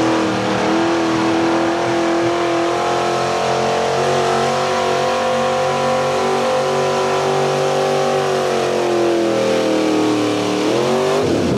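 Chevrolet square-body pickup's engine running at high revs under load while pulling a weight-transfer sled over the dirt. Its pitch holds steady, then drops in two steps near the end as the truck slows.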